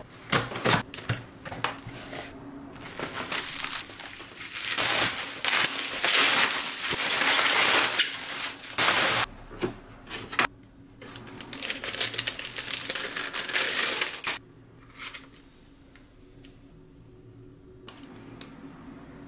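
A cardboard shipping box and packaging being opened: tape ripping, cardboard scraping and paper or plastic wrapping crinkling. The noise is dense and irregular, then after about fourteen seconds it drops to quieter handling with a few light clicks.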